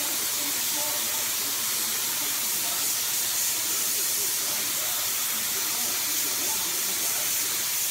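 Compressed-air paint spray gun hissing steadily while it atomises and lays turquoise paint.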